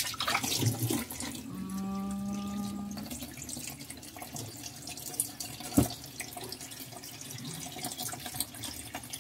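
Kitchen faucet running in a steady stream onto a wet cat and into a stainless steel sink. About a second and a half in, a low, steady tone sounds for about a second and a half, and a sharp knock comes near the middle.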